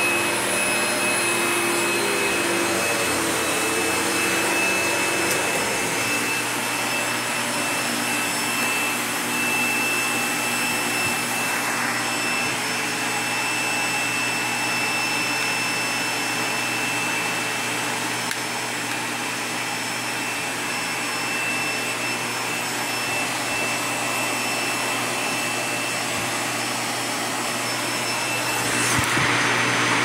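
Hoover Legacy/Duros canister vacuum cleaner running as its floor nozzle is pushed over carpet: a steady motor whine with a high tone, getting slightly louder near the end.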